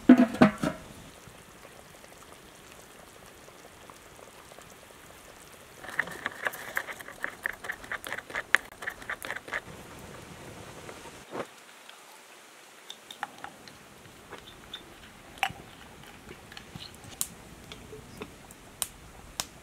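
A metal lid clattering onto a large stainless-steel pot. A few seconds later comes a run of quick small clicks lasting about four seconds, then scattered light taps.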